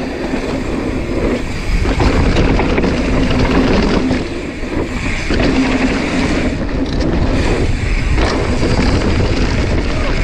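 Wind rushing over an action camera's microphone and a mountain bike's tyres rolling on loose dirt as it is ridden down a dirt-jump line, easing briefly about halfway through.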